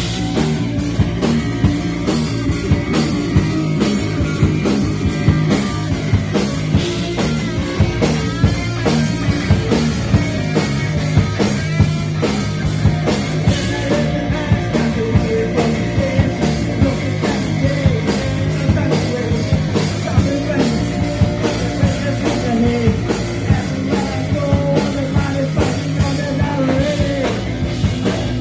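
A punk rock band playing live and loud, with a steady driving drum beat under bass and guitar and a voice singing.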